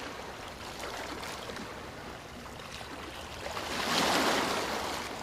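Ocean surf breaking against a rocky shore. The rushing builds to a loud crashing wave about four seconds in, then fades.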